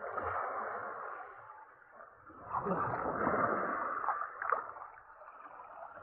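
Shallow seawater splashing and sloshing around a hand working in it to pick up pen shells, in two bouts, the second starting about two and a half seconds in.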